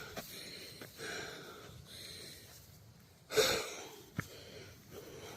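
A hiker breathing heavily between words, with a few loud breaths, the strongest a little over three seconds in. A short sharp tap comes a little after four seconds.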